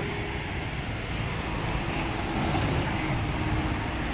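Steady road traffic noise, a continuous low rumble of engines and tyres.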